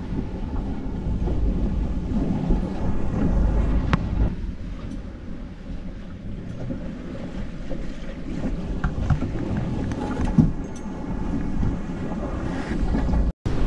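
Wind buffeting the microphone over the rush of water and spray as a Corsair F-27 trimaran sails fast through choppy waves in strong wind, with a few faint ticks. The sound cuts out for a moment near the end.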